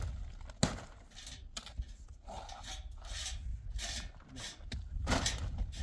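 Irregular scraping and rubbing of things being handled, with a sharp click about half a second in, over a steady low rumble.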